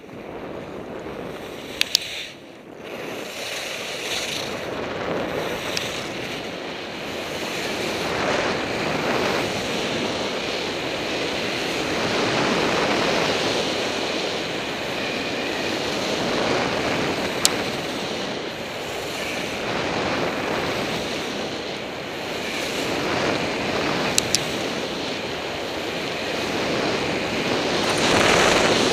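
Rossignol skis running fast down a snow slope: a steady hiss and scrape of the skis on snow mixed with wind rushing over an action camera's microphone. It builds over the first several seconds as speed picks up, with a few sharp ticks along the way.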